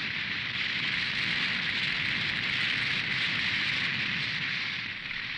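A steady crackling hiss from a battle sound effect, holding even throughout and easing slightly near the end.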